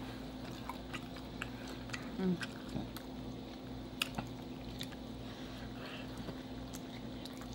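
Faint chewing and mouth sounds with a few light clicks of metal forks, over a steady low hum. A short low murmur comes about two seconds in.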